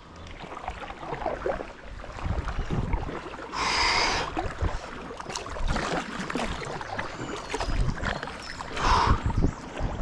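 Kayak paddling on a river: paddle blades dipping and swishing through the water, with two louder swishes about four and nine seconds in, over a rumble of wind on the microphone.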